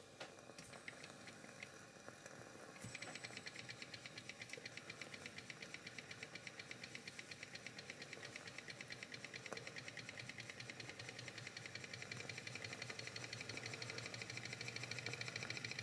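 Wiggers Stiwi2 model Stirling engine running: a few scattered clicks, then about three seconds in a fast, even mechanical ticking beat from its crank and piston sets in and grows gradually louder.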